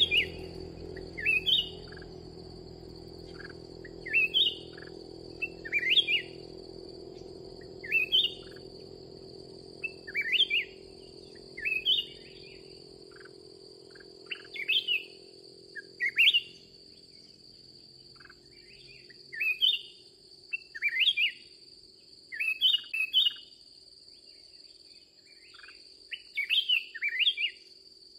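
Black-crested bulbul singing: short, loud, rising phrases repeated over and over, about one every second or two, over a steady high-pitched insect drone.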